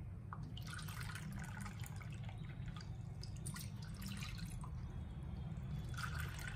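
Water poured from a glass pitcher into a plastic measuring cup and tipped into an empty non-stick pan, splashing and trickling in irregular spurts, cupful after cupful.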